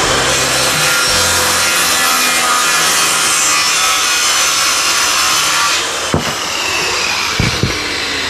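Power saw cutting through lumber, running loud and steady under load, easing slightly about six seconds in, with a few knocks near the end.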